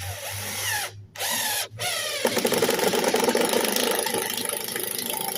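Power drill driving a screw through siding: two short spin-ups with a rising whine, then a steady run of about four seconds as the screw goes in.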